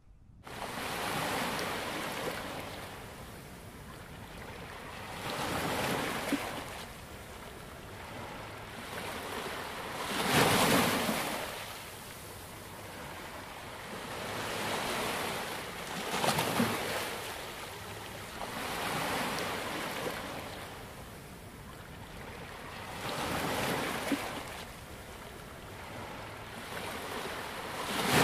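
Sea waves washing onto a shore, a rushing surge that swells and falls back every few seconds, the biggest about ten seconds in.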